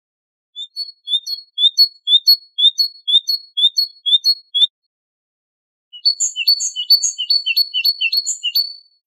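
Great tit singing two bursts of its repeated two-note song phrase, about two and a half phrases a second; after a pause of about a second, the second burst runs faster.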